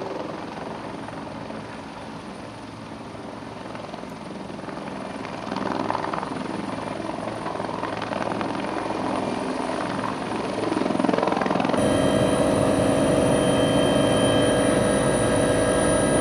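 Helicopter running on the apron with its rotor turning, growing louder as it lifts into a low hover. About twelve seconds in, it changes abruptly to the steady drone and whine of the helicopter heard from inside the cabin in flight.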